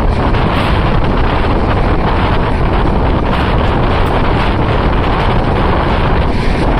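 Steady wind buffeting the microphone over the running noise of a moving train, heard from the open doorway of a coach at speed.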